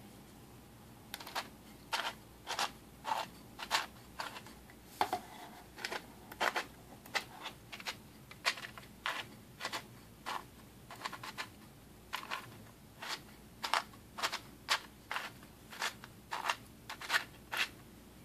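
Hand-cranked 3D-printed plastic gear train and cam-follower rods of a fish automaton clicking as it is turned, a sharp irregular click about twice a second starting about a second in. The rough running comes from the print-layer steps left on the parts.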